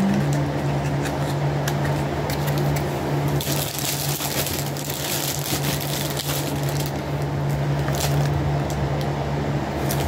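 Electric fan running with a steady hum, under small clicks and rustling from hands handling small cosmetic containers and packaging, with a few seconds of louder rustling near the middle.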